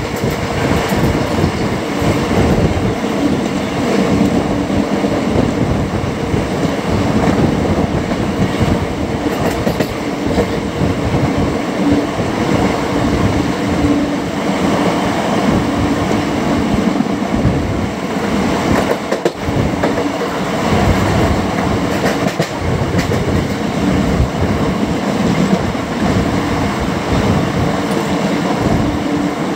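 Wheels of the Andaman Express passenger train clattering over the rails as it runs, heard from on board: a loud, steady rumble with a faint steady hum running under it.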